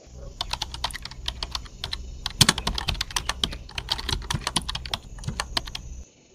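Keyboard typing sound effect: rapid, irregular key clicks, several a second, over a low steady hum, cutting off abruptly shortly before the end.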